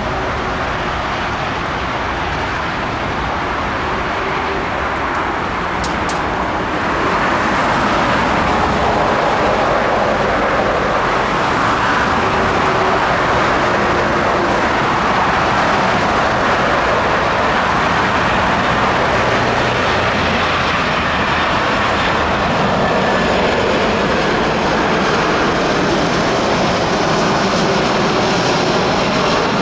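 A steady rumble that jumps louder about seven seconds in, where an Airbus A340-300's four CFM56 jet engines on landing approach take over with a loud, even rush. A thin high whine joins in near the end.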